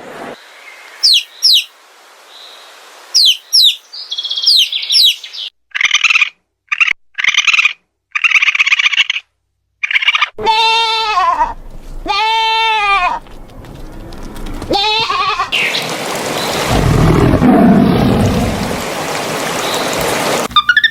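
A sequence of different animal calls: quick high bird chirps first, then buzzy calls, then several drawn-out bleats of goats or sheep, and near the end a long noisy rasping sound.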